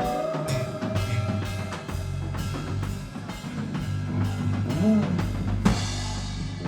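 Live rock band playing an instrumental passage: a steady drum-kit beat with kick drum and rimshots over bass guitar and electric guitar.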